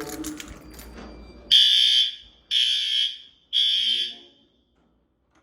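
Fire alarm sounding three loud, high-pitched beeps about a second apart, the temporal-three alarm pattern, set off as part of an alarm system test.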